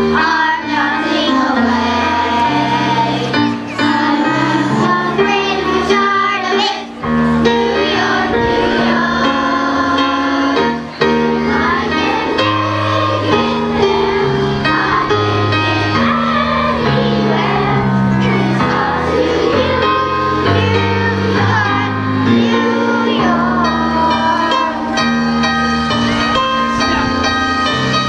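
Children's chorus singing together to an instrumental accompaniment, with bass notes moving underneath the voices.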